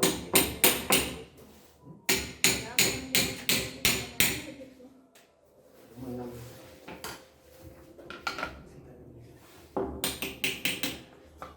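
Hammering: three runs of quick, sharp strikes at about four a second, the longest run of about eight blows in the first half, with a short run at the start and another near the end.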